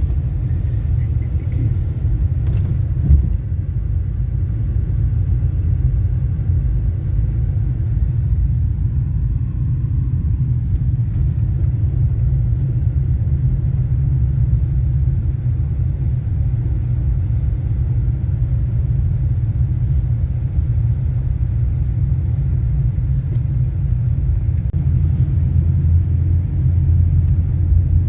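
A loud, steady low rumble with almost all of its energy deep in the bass and no clear rhythm or tone.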